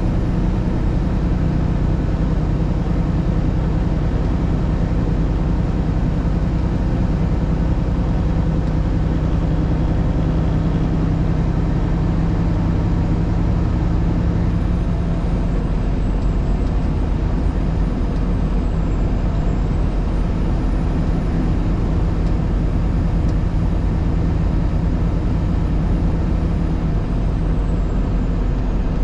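Steady engine drone and road noise of a vehicle driving along a snowy two-lane highway; the low engine hum eases off about halfway through.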